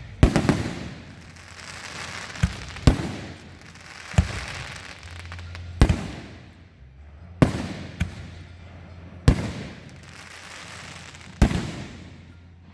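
Aerial firework shells bursting overhead: a series of about eight loud bangs, one to two seconds apart, each trailing off into a fading rush of noise.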